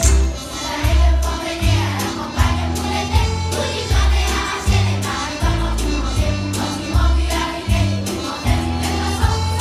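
Children's choir singing over musical accompaniment with a strong bass line that repeats in a steady rhythm.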